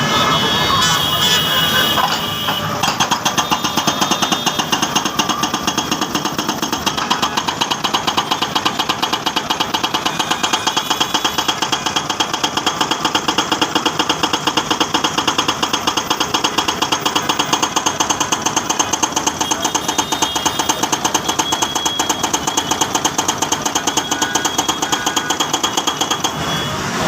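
Hydraulic breaker hammer on a Sany excavator pounding a concrete road, a rapid, even hammering that settles into a steady rhythm after about two seconds.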